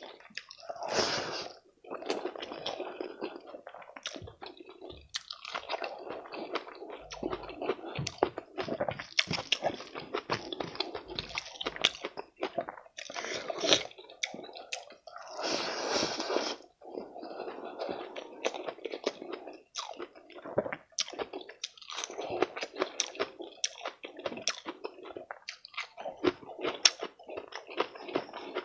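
A person chewing and biting food close to the microphone: wet, squishy mouth sounds with crisp crunches, a steady run of irregular clicks and smacks. The food is fried rice, a fried chicken leg and fish.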